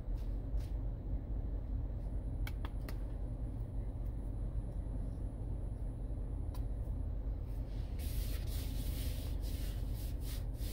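Steady low rumble of a 2020 Ford Explorer's 2.3-litre four-cylinder turbo engine idling, heard from inside the cabin. A few light clicks come in the first seven seconds, and a soft hiss over the last few seconds.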